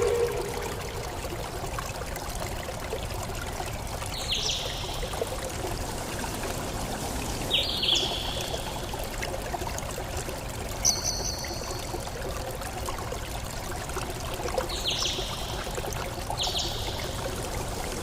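Steady running water, like a stream, with a bird giving a short high call about five times, a few seconds apart.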